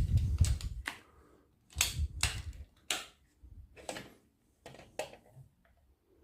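An airgun trigger is released against a trigger-pull gauge as the gun is handled, making a series of sharp mechanical clicks with low thuds in the first half.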